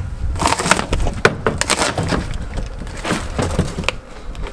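Rotten plywood boat floor cracking and splintering as it is torn up by hand: a run of irregular crunches and snaps.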